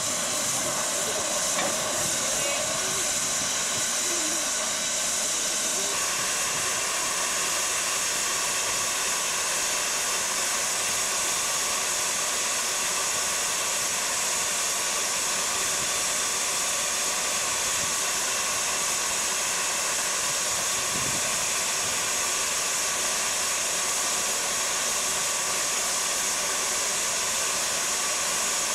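Steady hiss of steam from a standing metre-gauge steam locomotive.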